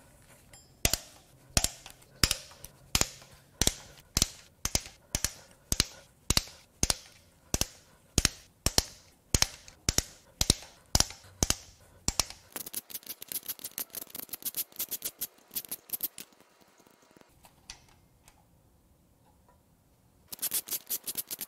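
Hand ratchet wrench clicking while loosening the cam cap bolts on a cylinder head: evenly spaced clicks about two a second for the first twelve seconds, then faster clicking, a pause of a few seconds, and more fast clicking near the end.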